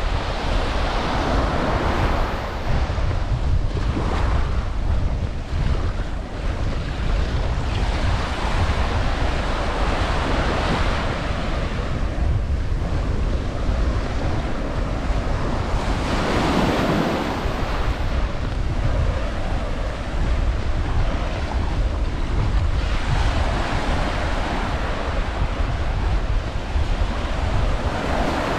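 Surf washing onto a sand beach, with a wave swelling and breaking every few seconds over a steady rumble of wind on the microphone.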